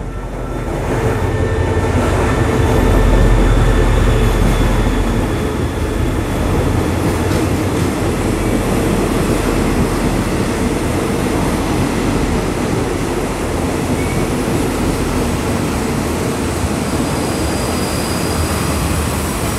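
SRT CDA5B1 diesel-electric locomotive, built by CRRC Qishuyan, running past as it arrives at the platform; its engine is loudest about three to four seconds in. A long line of passenger coaches follows, rolling by on the rails with a steady noise of wheels on track.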